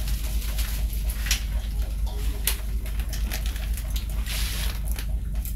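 Dry cornmeal and flour being mixed in a bowl for dumpling dough: irregular scraping and light clicking, over a steady low hum.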